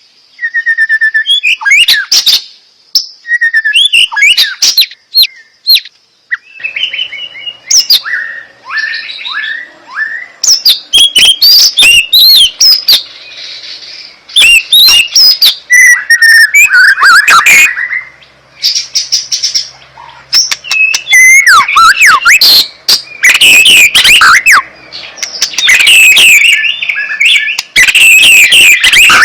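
A songbird singing a loud, varied song of clear whistles and rapid chattering phrases, in bursts with short pauses between them.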